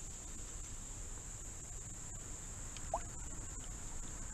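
Insects in the streamside trees trilling steadily, high-pitched, over a low background rumble, with a few faint clicks and one short rising squeak about three seconds in.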